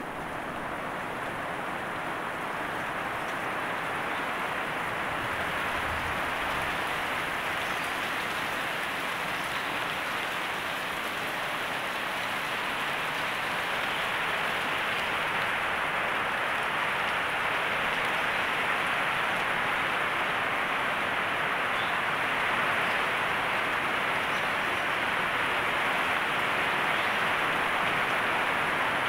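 Heavy rain pouring steadily onto leafy plants, a dense even hiss that slowly grows a little louder.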